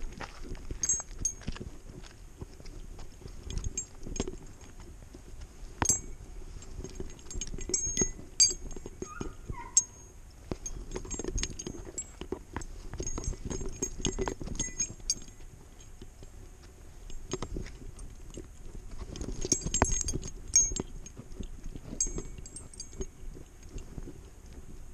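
Metal ID tags on a dog's collar clinking and jingling irregularly as the dog walks, over low bumping and rubbing of the camera strapped to the collar.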